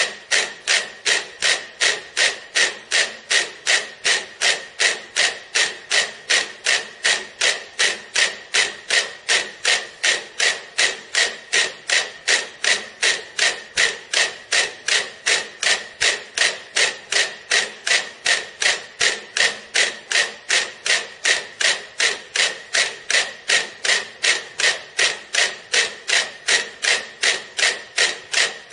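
Metronome ticking steadily, close to three even ticks a second, each tick sharp with a brief ringing tone.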